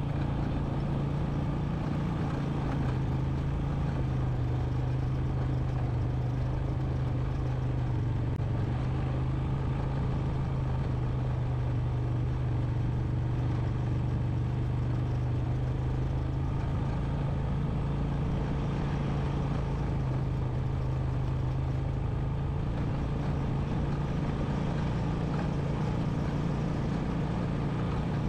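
Single-cylinder four-stroke engine of a 2001 Honda Recon 250 ATV running steadily under way on a dirt trail.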